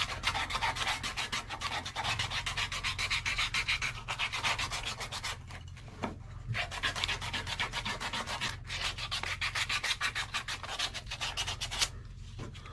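Wooden hand-plane tote being hand-sanded with 120-grit sandpaper to strip its old lacquer: quick, rhythmic scratchy back-and-forth strokes, with a short break about six seconds in, stopping just before the end.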